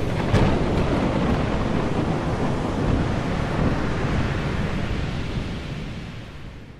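Rough sea waves and wind: a dense, steady rushing noise that fades out over the last two seconds.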